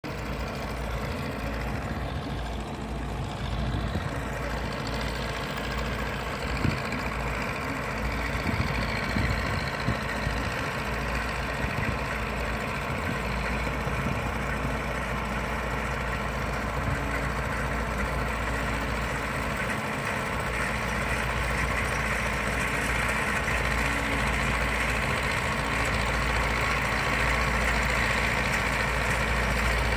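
Farm tractor's diesel engine running steadily under load as it pulls a disc cultivator through the soil, growing a little louder near the end.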